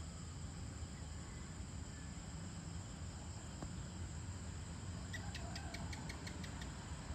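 Faint dusk ambience: a steady high insect drone over a low distant rumble. About five seconds in, a quick run of about ten sharp, clicking chirps lasting under two seconds.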